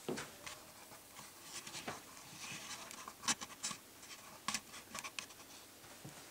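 Faint rustling and irregular light clicks of a handheld multimeter and its dangling test leads being handled and moved about.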